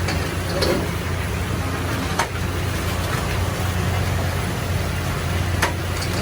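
Steady low engine-like rumble with a constant hum, broken by a few short sharp clicks.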